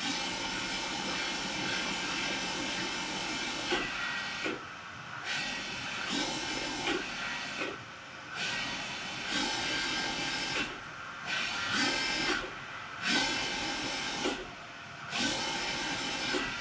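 BF30 milling machine spindle, belt-driven by a 1.5 kW AC servo motor, running steadily at 3000 RPM, then slowing and speeding back up again and again every second or two as the speed is changed. The quick changes show how fast the servo accelerates and decelerates.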